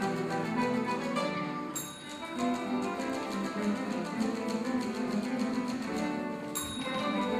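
Guitar orchestra playing a fast, rhythmic piece of plucked and strummed notes. A bell rings sharply twice, about two seconds in and again near the end.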